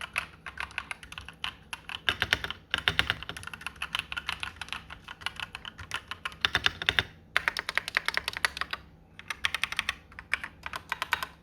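Typing on an Akko 3087 mechanical keyboard: fast runs of key clacks broken by brief pauses.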